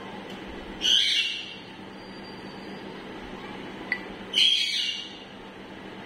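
Alexandrine parakeet giving two loud squawks about three and a half seconds apart, with a single sharp click between them, over a steady low hum.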